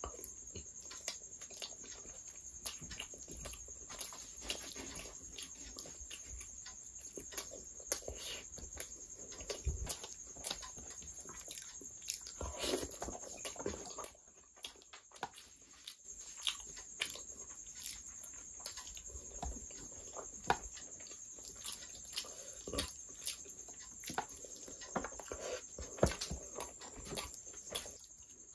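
Close-up chewing and lip-smacking of a person eating curry and rice by hand: many short wet mouth clicks at an uneven pace, over a faint steady high-pitched tone.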